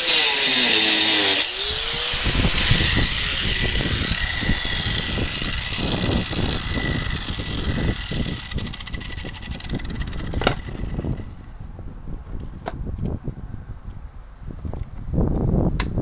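Electric angle grinder cutting steel square tubing: a loud, high-pitched grind at the start that gives way to the motor running and winding down, fading out about eleven seconds in. A few sharp metallic clicks follow near the end as the locking pliers on the tubing are handled.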